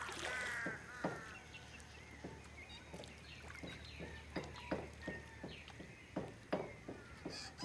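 Faint, irregular splashes and small pops of feet wading through shallow water on a wet sand flat at low tide. A few short animal calls come near the start and again near the end.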